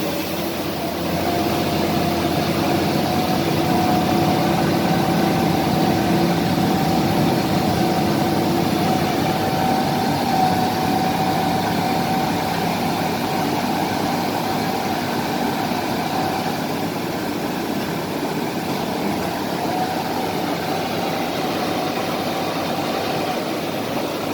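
Heavy diesel earth-moving machinery, a bulldozer, running steadily with a high, steady whine over the engine noise. The whine fades out about two-thirds of the way in and comes back shortly after.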